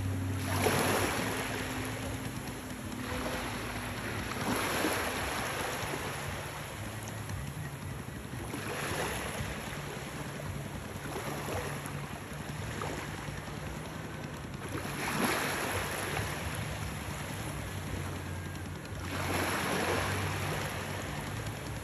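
Small waves washing onto a beach: five gentle swells of surf a few seconds apart over a low, steady hum.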